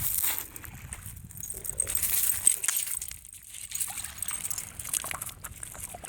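Small waves washing over a pebbly shoreline: shallow water sloshing and trickling back among the stones, with light clicking of pebbles, swelling about two seconds in.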